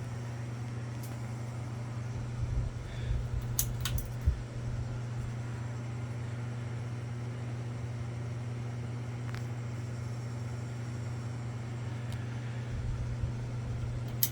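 Harbor Breeze Armitage 42-inch ceiling fan running on medium with a steady low buzzing hum, which the owner puts down to the missing seal on the light globe. A few knocks and clicks come about two to four seconds in.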